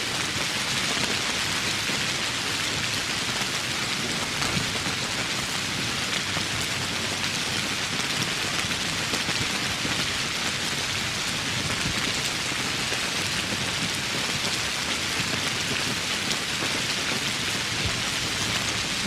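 Steady rain falling in woodland: an even hiss of many drops with fine pattering ticks, unchanging throughout.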